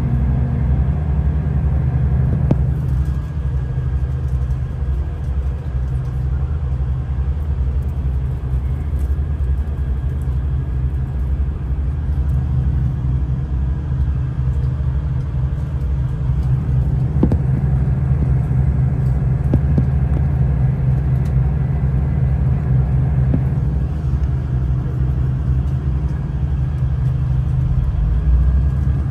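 Train running with a steady low rumble.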